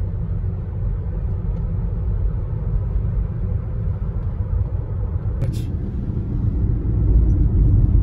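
Steady low rumble of a car on the move, heard from inside the cabin: engine and tyre noise on the road. It grows a little louder near the end, and there is one brief click about five and a half seconds in.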